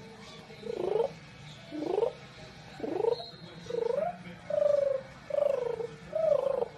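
English bulldog puppy whining in a string of about seven calls, roughly one a second. The later calls are longer and slide down in pitch.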